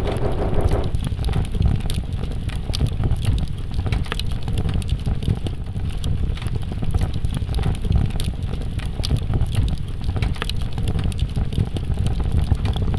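Steady low rumble with scattered crackles and clicks, a fire-and-debris sound effect.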